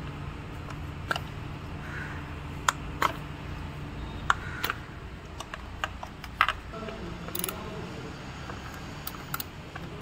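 Sharp plastic clicks and light clatter, about a dozen at irregular intervals, as the electrical connectors are unclipped from the ignition coils on a Maruti Suzuki Baleno's petrol engine and the coils are worked loose. Under them is a low steady hum that stops about seven seconds in.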